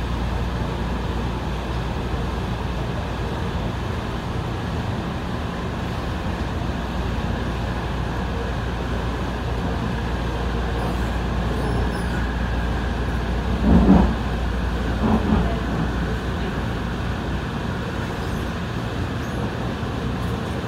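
AirTrain JFK automated people-mover car running along the elevated guideway, heard from inside the car: a steady low rumble and hum of the running train. Two short, louder sounds break in about two-thirds of the way through.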